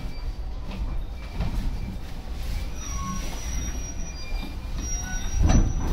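Inside a Yokosuka Line commuter train rolling past a station platform: a steady low rumble of the running gear, with thin high wheel squeals coming and going. A heavy clunk comes about five and a half seconds in.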